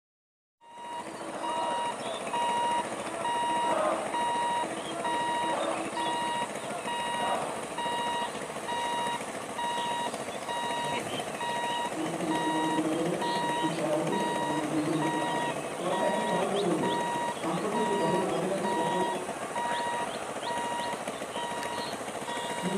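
A regular electronic beep repeating steadily over a steady high hiss, starting suddenly less than a second in. From about halfway, low voices join in.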